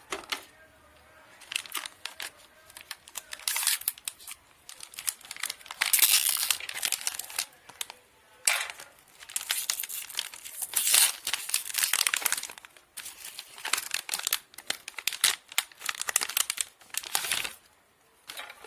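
Hard drive packaging crinkling and tearing as it is opened by hand, in irregular bursts of rustling.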